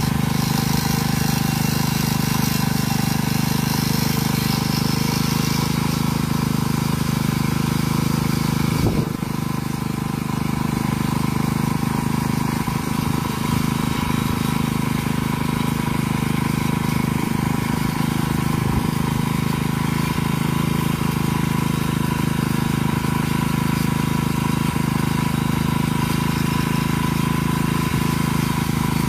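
Motorcycle engine idling steadily, with a brief dip about nine seconds in.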